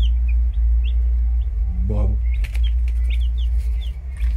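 Baby chicks peeping: short, high, falling peeps, a couple a second, over a steady low rumble. A brief lower call, from a voice or bird, comes about two seconds in.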